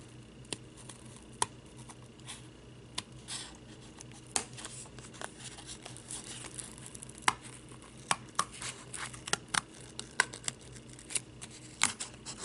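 Scissors snipping through medium-weight cardboard with a paper pattern on it: a series of short, irregular cuts that come closer together in the second half.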